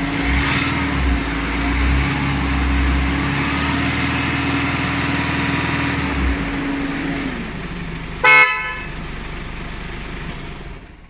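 Car engine running steadily; its low rumble drops away about six to seven seconds in. About eight seconds in comes one short, loud toot of the car horn, then the sound fades out near the end.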